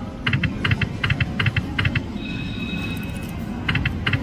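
Bison Rumble Rumble video slot machine spinning its reels: rows of quick electronic clicking ticks as the reels spin and stop, a brief held electronic tone in the middle, then more clicking as the next spin starts, over a low casino hum.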